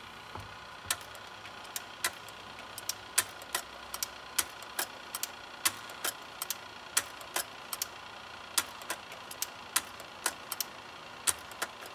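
Kodak 760H carousel slide projector running on the bench after being serviced and plugged in: a steady hum from the motor, with sharp mechanical clicks coming irregularly, about two or three a second.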